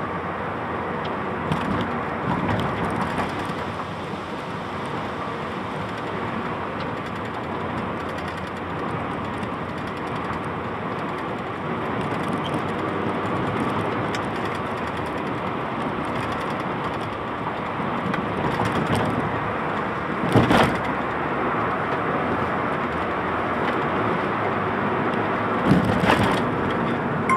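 Car interior noise while driving downhill: a steady roar of tyres on the road with the engine underneath. Two brief thumps stand out in the last third.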